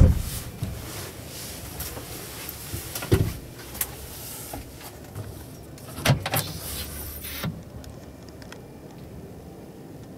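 Clicks and knocks from an overhead storage locker in a truck cab. There is a knock at the start and a thump about three seconds in, then a short run of clicks about six seconds in as the locker's latch is released and the flap is opened.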